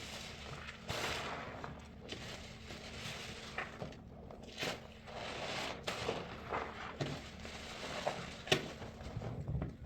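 Sponge loaded with soap paste being squeezed and worked: irregular wet crackling and squelching with sharp pops, the loudest pop near the end.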